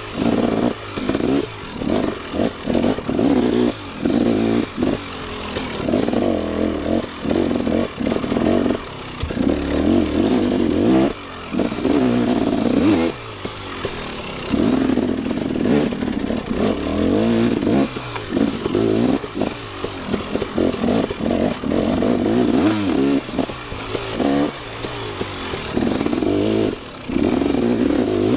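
Dirt bike engine revving hard and dropping off again and again as the throttle is worked, in surges of a second or two with brief gaps between.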